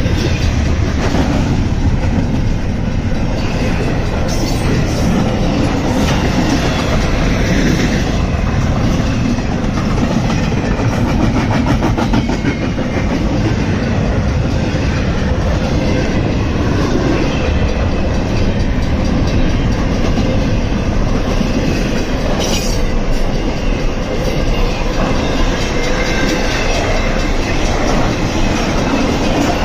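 Intermodal freight cars rolling past close by: a steady rumble of steel wheels on rail with clickety-clack over the rail joints and a few sharp knocks.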